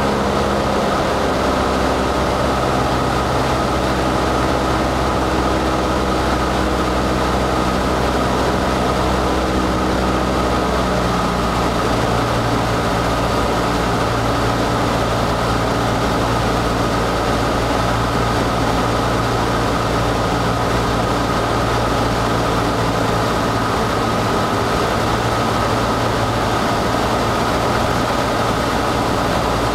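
Cessna 152's four-cylinder Lycoming engine and propeller running steadily on final approach to landing, heard inside the cabin with the rush of airflow. The engine note shifts slightly about eleven seconds in.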